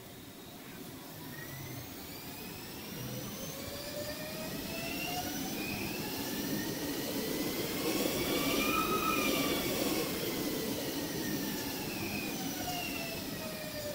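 Electric multiple unit moving through a station: several whining tones from its traction drive climb in pitch, peak about two-thirds of the way in, then fall again, over a rumble from the wheels that is loudest at the peak.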